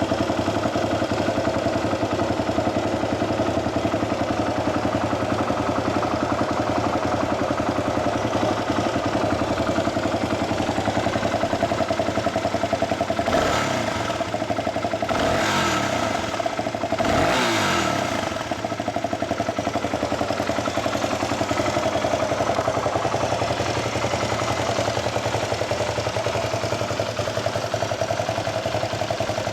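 2012 Yamaha WR250X's single-cylinder four-stroke engine idling steadily through an aftermarket Delta Barrel 4 silencer and Powerbox pipe. About halfway through it is given three quick throttle blips, each rising and falling back to idle.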